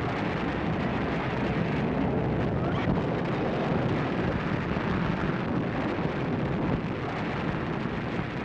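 A large fire burning with a steady rushing, rumbling noise: the hydrogen-filled airship Hindenburg going up in flames.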